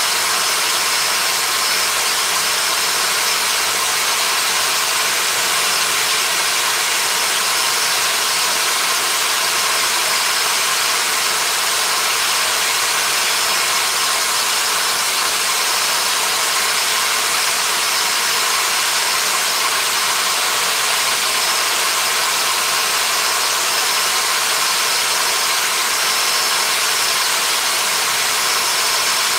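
A small electric power tool running steadily without a pause, a constant hiss with a faint high whine.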